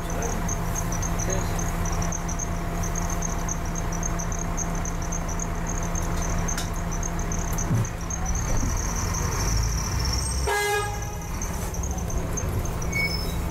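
A double-decker bus's engine idling steadily at traffic lights, heard from the upper deck, with one short vehicle horn toot about ten seconds in. Near the end the bus pulls away.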